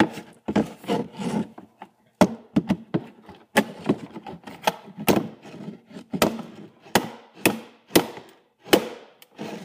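Claw hammer working at a router's case, about a dozen sharp knocks at irregular intervals with scraping and rubbing between them.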